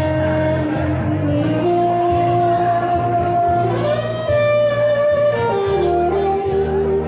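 Music with long held melody notes over a steady bass line and an even, hi-hat-like beat of about two to three ticks a second.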